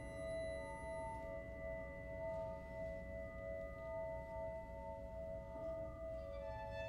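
Tuned glasses rubbed with wet fingers, a glass harmonica, sustaining a steady chord of several pure tones that pulse slowly. A few higher ringing tones enter near the end.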